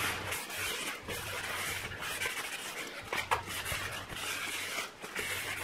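Cloth rubbing over the face of a new cast-iron brake rotor, wiping off brake cleaner and its anti-rust coating: a steady scrubbing hiss with a few faint knocks as the rotor is handled.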